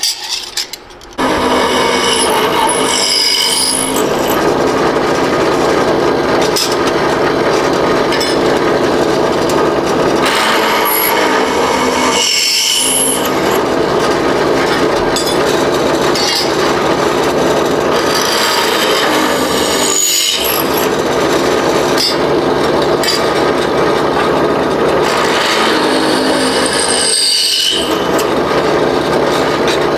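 Electric drill running and cutting through steel sheet, a steady grinding noise with short dips every several seconds.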